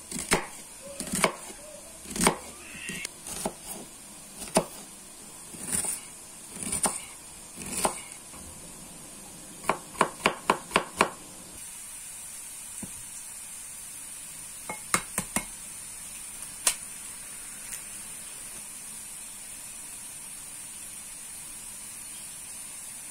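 Kitchen knife chopping on a cutting board: irregular knocks at first, then a quick run of about six chops about ten seconds in. After that come a few scattered knocks over a steady faint hiss.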